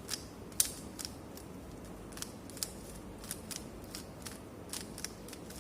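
Rubik's cube layers being turned move after move through a long F2L algorithm: a run of short plastic clicks at an uneven pace, about two or three a second.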